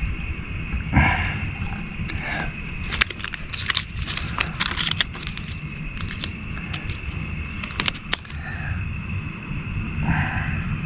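Close handling noise from working mastic sealing tape around a wire splice: a run of sharp clicks and crackles about three to five seconds in and a couple more near eight seconds, over a steady low rumble.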